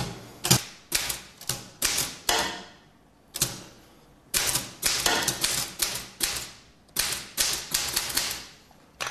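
Typebar office typewriter being typed on by hand: separate sharp key strikes, about three a second, in runs of several with a couple of short pauses.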